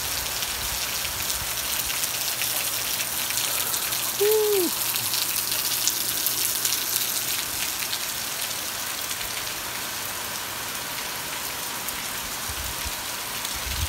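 Heavy rain falling steadily, spattering on the ground with many fine drop ticks. About four seconds in, a short pitched sound rises and falls once.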